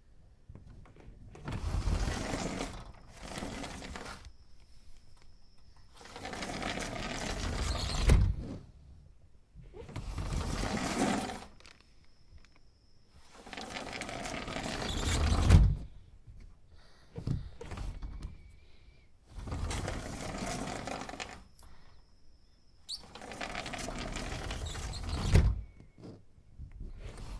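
A sliding window pushed open and shut again and again, about six times: each stroke is a rolling scrape along the track, several ending in a sharp thud as the sash hits the frame.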